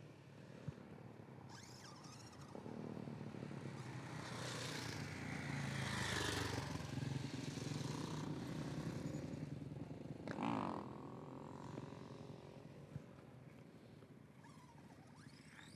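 Road traffic passing close by, including a motorcycle. The engine and tyre noise swells to a peak about six seconds in and fades, then another vehicle goes by about ten seconds in with a brief rise and fall in pitch.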